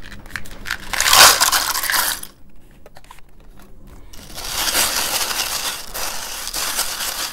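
A boxful of zinc-plated steel wood screws poured into a plastic jar of citric acid solution: a dense, loud clatter from about one to two seconds in. Then the screws rattle and scrape together as a finger stirs them down in the jar, quieter and longer, from about halfway through.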